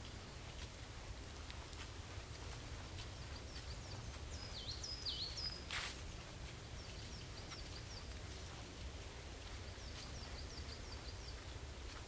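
Small birds chirping in short, high, quick series, with two louder downward-sliding notes about four and five seconds in, over a steady low rumble. A sharp click about six seconds in.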